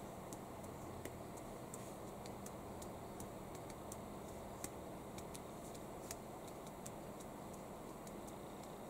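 Quiet room tone with faint, sharp ticks a few times a second, unevenly spaced.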